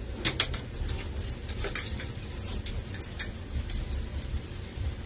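Home-built three-axis CNC router running: a steady low hum with scattered, irregular light ticks and clicks.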